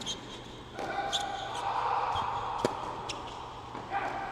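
Tennis ball bouncing a few times on an indoor hard court, each bounce a sharp, irregularly spaced pop, echoing in a large hall. A steadier background noise swells under the bounces from about a second in until near the end.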